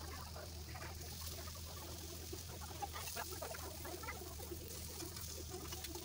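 Seekh kebabs sizzling faintly in a thin layer of ghee on a flat iron tawa, a steady run of small irregular crackles and spits over a soft hiss.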